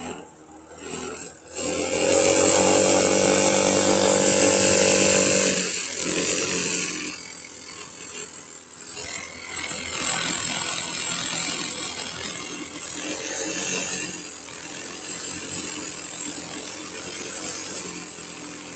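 Snowmobile-engined go-kart running hard: the engine is held at high revs for about four seconds, starting about a second and a half in, then eases off and rises and falls.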